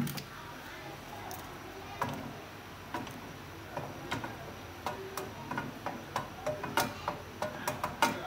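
Cooking oil heating in a frying pan, spitting with sharp, irregular pops that come more and more often toward the end as the oil gets hot. A single sharp clack comes right at the start.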